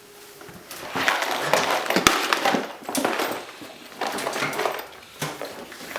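Wood fire crackling and popping in a newly lit fireplace, with sharp snaps over a noisy rush. It is quiet for the first second, then loudest for the next few seconds.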